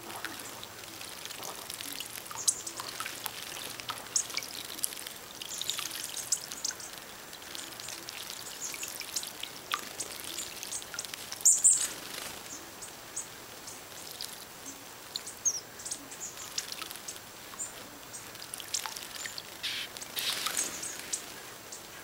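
A flock of small birds calling with many short, high chirps while they bathe, with water splashing and wings fluttering in a stone birdbath. The loudest bursts come about halfway through and again near the end.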